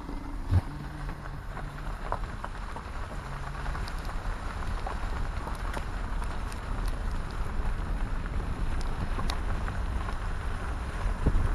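Road noise inside a car driving on a wet unpaved road: a steady low tyre rumble with scattered small ticks and a thump about half a second in, growing louder near the end.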